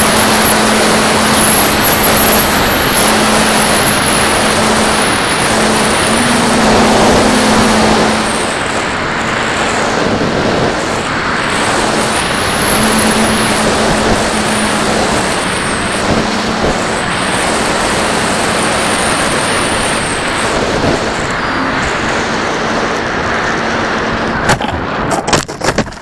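Onboard sound of a Mako FPV flying wing in flight: loud wind rush over the airframe with the electric motor and propeller whining, the pitch wavering with throttle. Near the end a few sharp knocks as the wing hits the ground and comes to rest, and the sound drops away.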